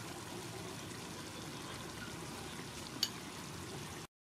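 Steady low background hiss, with one sharp click about three seconds in as a metal spoon knocks against the ceramic bowl of curry.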